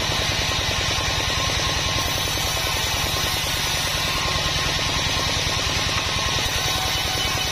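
A 36-inch sawmill band saw running steadily while its blade rips a block of Sonokeling rosewood, over a rapid, even pulse from the machine's drive.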